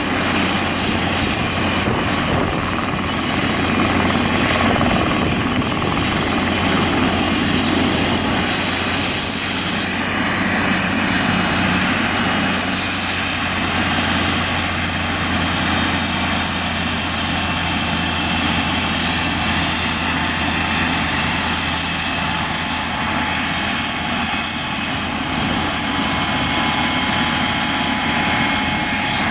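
Mosquito XET single-seat turbine helicopter in flight: a steady high turbine whine over continuous rotor and engine noise.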